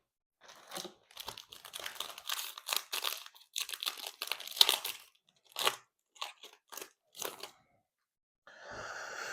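Foil trading-card pack wrapper being torn open and crinkled by hand, a run of short irregular crackling rustles that thin out toward the end.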